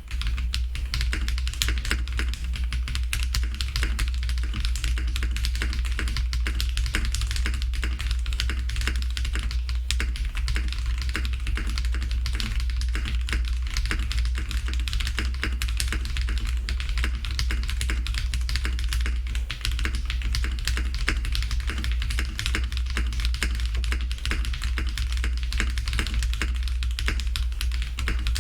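Continuous fast typing on a Portico mechanical keyboard fitted with Krytox-lubed KTT Sea Salt Lemon linear switches and PBT keycaps: a dense, unbroken run of keystrokes. Background music with a steady bass plays underneath.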